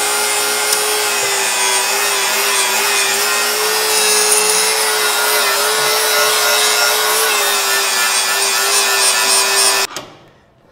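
Angle grinder running against the steel radiator bracket, grinding the paint off it to bare metal for welding: a steady, loud grinding with a constant whine, which cuts off suddenly near the end.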